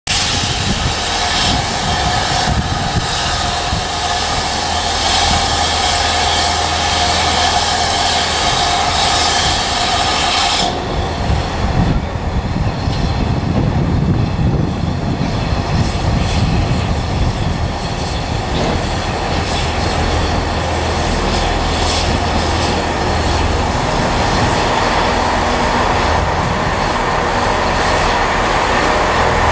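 GWR 5101 class 2-6-2T steam tank locomotive No. 4144 moving slowly, steam hissing loudly from its open cylinder drain cocks until the hiss cuts off suddenly about ten seconds in. After that the engine runs on more quietly, with a low rumble and occasional clanks.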